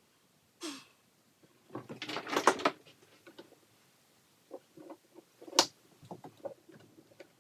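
Irregular knocks, clunks and scrapes from working a Sea-Doo engine loose to pull it out of the hull. There is a short scrape about a second in, a louder rattling scrape around two seconds in, a sharp knock a little past halfway, then scattered small clunks.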